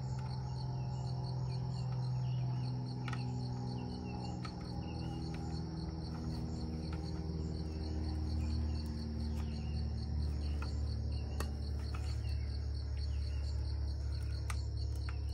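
Insects chirping in a steady, rapid pulsing trill over a louder low hum that drifts slowly in pitch, with a few scattered faint clicks.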